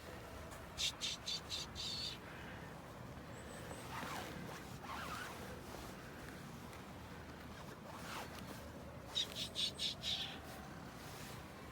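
A bird chirping in two short runs of rapid high chirps, about five a second, about a second in and again near the end, with fainter calls in between.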